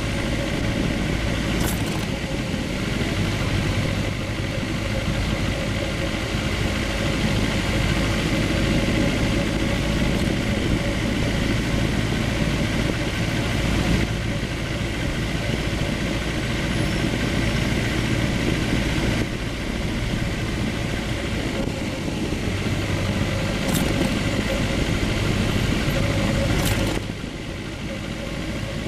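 Sport motorcycle engine running steadily at low revs while the bike rolls slowly, with road and wind noise; a little quieter near the end.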